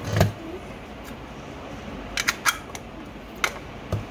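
Tabletop handling noise: a thump about a quarter second in, then a scatter of sharp clicks and taps as a plastic stapler and paper are handled on a table.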